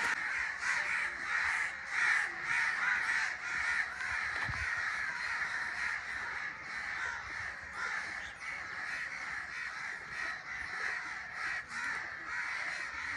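A flock of crows cawing, many overlapping calls forming a dense continuous chorus.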